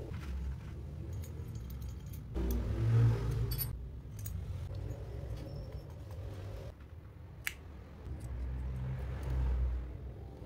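Light metallic clicks and clinks as a screwdriver and small carburetor parts are handled during reassembly of a Yamaha Mio Sporty scooter carburetor, with one sharp click about seven and a half seconds in, over a low rumble.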